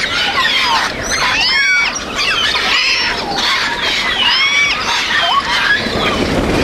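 Parrots calling: a dense run of harsh squawks, arched calls repeated about once or twice a second, several overlapping.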